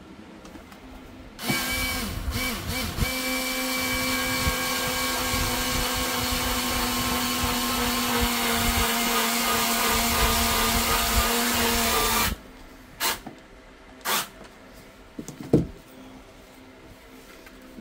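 Small electric screwdriver running steadily for about ten seconds, driving a self-tapping screw into a steam iron's plastic body to bore a new hole and cut its thread. It stops and starts a few times at first, then cuts off suddenly, followed by a few short knocks.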